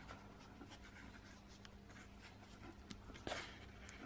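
Fingers rubbing and pressing a strip of gaffer tape flat over a wire on cardboard: faint, scratchy rubbing, with a slightly louder brush a little over three seconds in.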